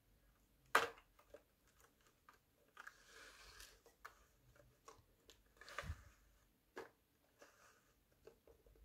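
Plastic blister packs of Hot Wheels cars being handled and slid into place: scattered plastic clicks and taps, a sharp click about a second in, a rustling scrape around three seconds and a clatter with a light knock near six seconds.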